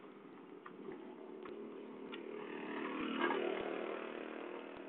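A small engine running steadily, swelling briefly about three seconds in, with scattered sharp clicks and knocks over it.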